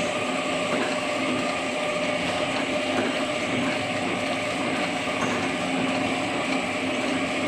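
Horizontal flow-pack packaging machine running steadily: a constant mechanical hum with a few steady whining tones.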